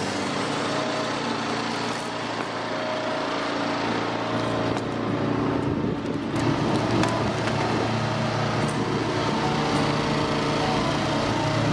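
Portable sawmill's engine running steadily.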